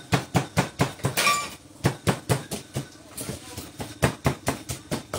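Wooden pestle pounding in a mortar, steady knocks at about four strokes a second, easing off briefly twice.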